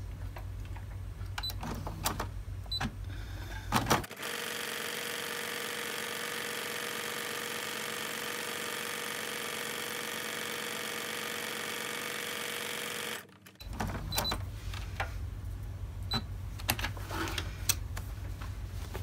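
Electric sewing machine stitching a seam through cotton fabric, running at a steady speed for about nine seconds before stopping abruptly. Small clicks and fabric rustling come before and after the run.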